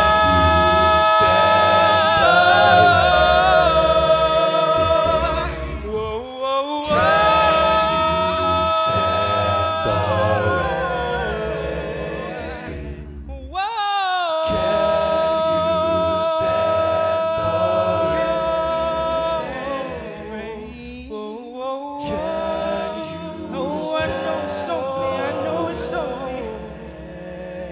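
Male a cappella group singing long held chords over a sung bass line. The phrases break off briefly about every seven seconds.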